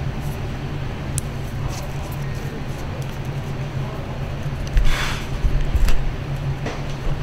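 Phillips screwdriver working the small screws of a Shimano XTR brake lever's reservoir cap: light clicks, with a louder knock and scrape about five seconds in. A steady low hum runs underneath.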